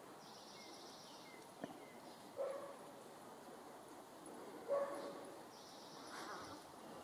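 Two short barks about two seconds apart, with a faint high chirring heard twice behind them.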